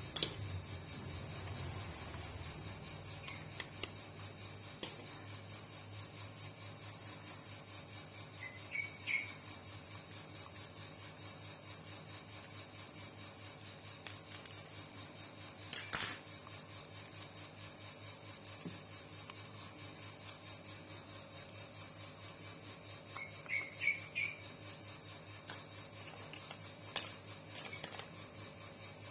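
Hand tools clinking now and then against the metal parts of a sewing machine while it is being unbolted, with one much louder sharp click near the middle, over a faint steady low hum.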